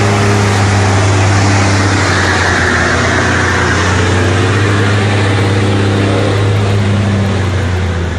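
Logging truck engine running steadily with a deep, low drone under a constant hiss of road noise.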